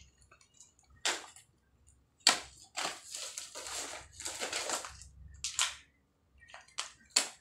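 Plastic packaging crinkling and rustling in irregular bursts as a snack packet is torn open and pulled out of a black plastic mailer bag by hand, with a few sharp crackles.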